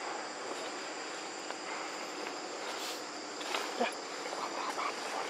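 Steady high-pitched drone of insects in the surrounding vegetation, with a brief louder sound about three and a half seconds in.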